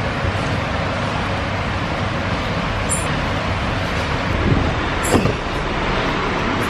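Steady rushing background noise, with a couple of faint brief clicks over it about halfway through.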